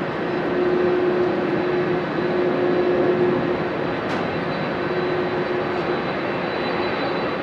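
Boeing 767-300ER jet engines running steadily at low power as the airliner taxis: a continuous rush with a held low hum in it.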